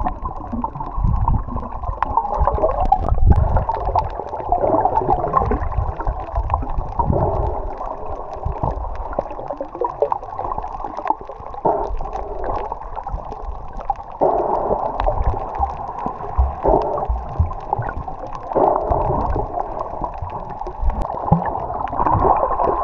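Rushing, gurgling water with a low fluctuating rumble, as heard from a moving boat.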